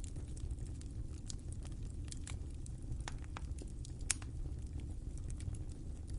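Wood fire crackling: irregular small pops and snaps over a low steady rumble, with one sharper pop about four seconds in.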